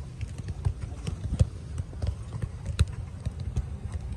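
Footballs being kicked and tapped on artificial turf: irregular knocks, the two loudest about a second and a half and nearly three seconds in, over a low rumble of wind on the microphone.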